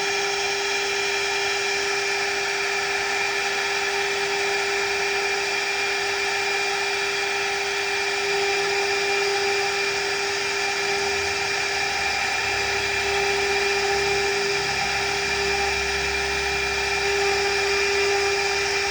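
CNC router's high-speed spindle whining steadily as its bit engraves marble, over a constant grinding hiss. A low rumble joins about halfway through.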